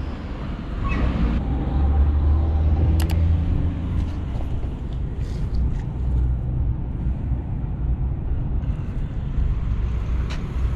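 Chevrolet Camaro SS 1LE's 6.2-litre LT1 V8 engine and exhaust running low-pitched while driving. It picks up about a second in, then settles to a steady drone.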